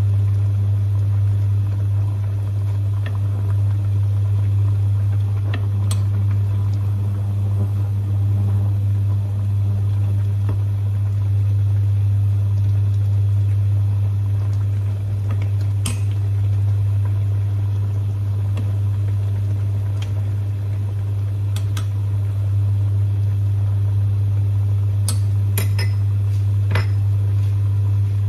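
A loud, steady low electrical hum, with a few light clinks of chopsticks against a steel pot.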